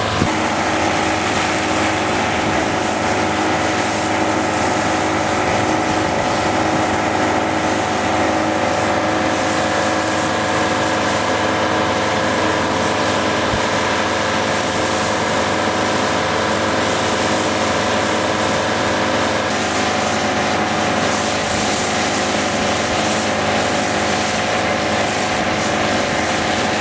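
Fire engine running steadily at constant speed, driving its water pump to supply a hose in use.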